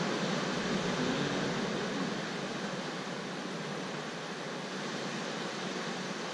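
Ocean surf washing through a sea cave: a steady rushing noise, slightly louder in the first two seconds.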